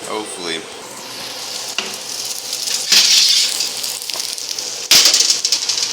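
Ribeye steak sizzling in a very hot pan. The hiss swells loudly about three seconds in, then comes again in a sudden loud burst near the end.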